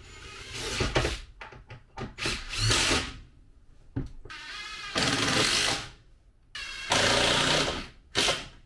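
Cordless drill driving screws: four runs of the motor of about a second each, with a short fifth burst near the end.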